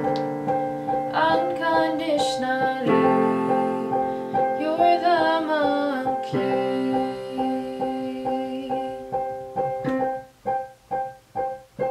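Piano accompaniment of held chords under a woman's sung notes, some of them wavering. About ten seconds in, the piano changes to short repeated chords, roughly two a second.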